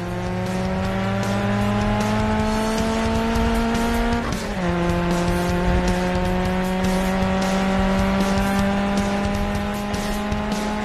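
Sports car engine accelerating, its pitch climbing steadily, then dropping at a gear change about four seconds in and climbing again.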